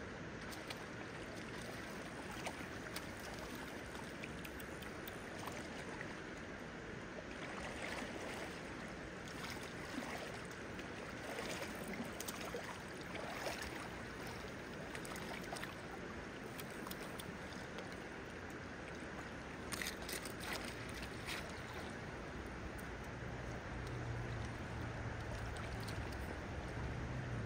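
Steady rush of a shallow river flowing over its stony bed, with small splashes now and then from a wading angler playing and netting a trout. A low hum joins near the end.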